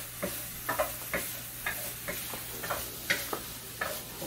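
Knife chopping green beans on a plastic cutting board: about a dozen sharp, irregular taps, two or three a second.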